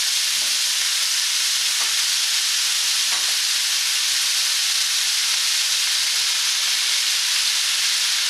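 Pak choi stir-frying with ginger, garlic and spring onions in hot sesame oil in a wok: a steady sizzle, with a couple of faint knocks.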